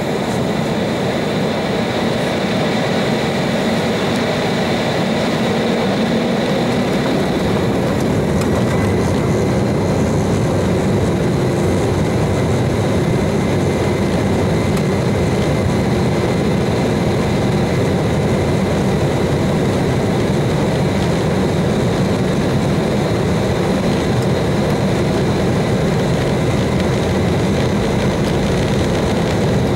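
Inside the cabin, the Embraer 190's GE CF34-10E turbofan engines spool up to takeoff power as the airliner rolls down the runway: a loud engine noise that swells over the first several seconds and then holds steady, with a high whine running through it and a second, higher whine joining about eight seconds in.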